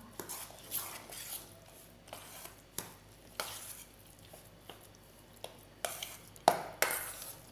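Metal spoon stirring a thick semolina and curd batter in a stainless steel bowl, scraping and knocking against the bowl's sides in irregular strokes, with the loudest strokes near the end.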